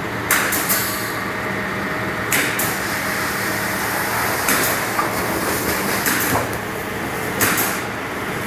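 CNC punch press running, its motor humming steadily while the punch strikes sharply, mostly in quick pairs, about every two seconds.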